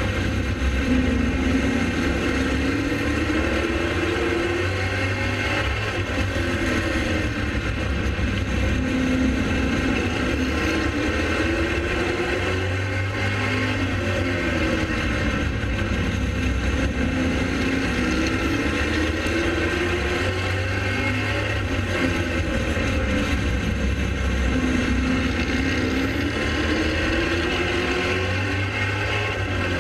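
Pro late model race car's V8 engine at racing speed, its pitch climbing and falling every few seconds as it accelerates out of each turn and lifts going into the next, over a steady low rumble.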